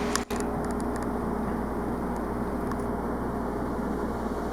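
Steady background hum and hiss of room noise, with two low steady tones and a brief dropout just after the start.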